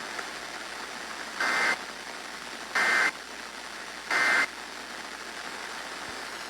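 Weather radio receiver hiss broken by three short data bursts of warbling two-tone screech, each about a third of a second long and about 1.4 s apart. The bursts are the EAS SAME end-of-message code that closes the severe thunderstorm warning.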